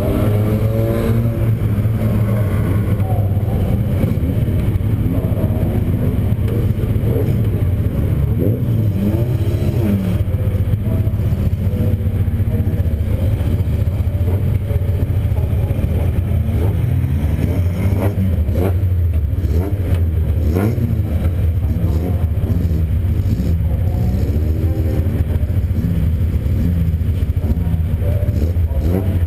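Euro Rod race car's engine heard from inside its cabin, running with a steady low drone and revving up and down again and again.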